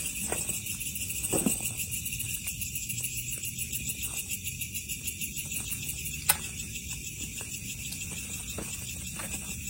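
Chorus of night insects such as crickets trilling steadily in fast, even pulses, with one sharp click about six seconds in.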